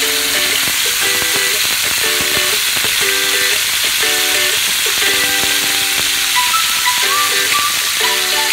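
Marinated chicken drumsticks frying in hot oil in a pan: a steady sizzling hiss with small crackles and spatters, over background music.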